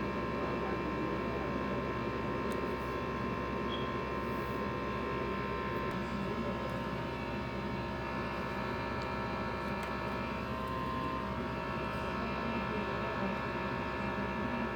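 A steady mechanical hum with several steady tones over a low rumble, unchanging throughout.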